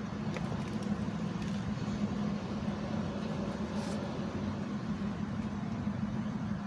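Steady low hum under even background noise, with a faint brief rustle about four seconds in.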